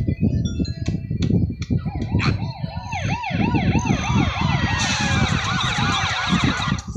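Cartoon police sirens: a single siren starts about a second and a half in with quick rising-and-falling yelps, and a few sharp knocks come before it. More sirens then join, wailing and overlapping in a dense chorus.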